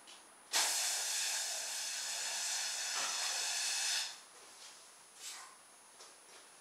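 Air rushing out of an inflated balloon through the bent drinking-straw jets of a homemade balloon-powered helicopter: a loud, steady hiss with a faint whistle in it, starting about half a second in and stopping abruptly after about three and a half seconds.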